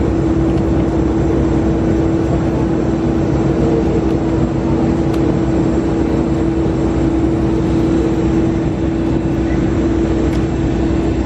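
Steady drone of aircraft noise on an airport apron: a constant hum held on one tone over a low rumble, not rising or falling.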